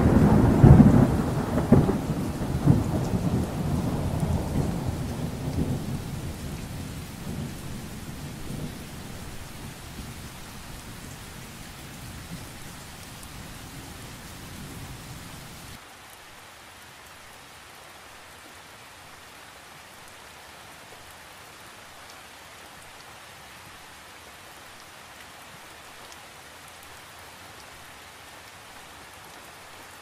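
Steady rain with a long roll of thunder that peaks about a second in and slowly fades. About halfway through the low rumble drops away suddenly, leaving only the faint, even hiss of the rain.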